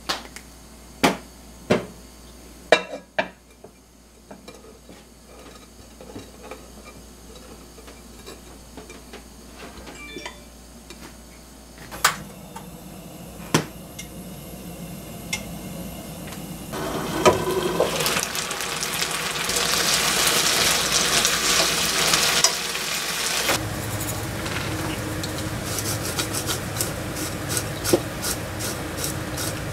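Cooking sounds in sequence: a few sharp taps of a salt-and-pepper shaker, then a low gas-burner hum with a knock or two as a ceramic tagine lid is set on. About two-thirds in, a loud sizzle of lotus root and carrot frying in a pan begins, and near the end a sesame grinder clicks rapidly and evenly.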